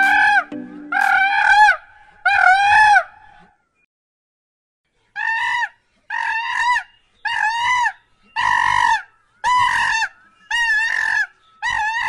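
A loud animal call repeated about once a second, each call high and rising then falling in pitch. There is a pause of about two seconds after the first few calls.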